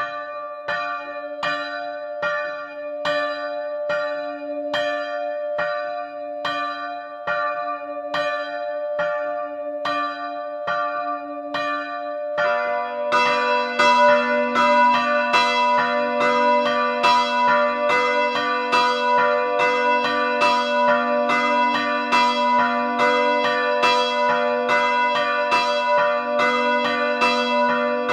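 Two swinging bronze church bells ringing. The smaller 1929 Luigi Magni bell (note d'') rings alone at first, with steady strokes a little faster than one a second. About twelve seconds in, the larger, lower 2004 Feniks Žalec bell (note h', i.e. B) joins, and the two strike together in an uneven, overlapping peal that is louder.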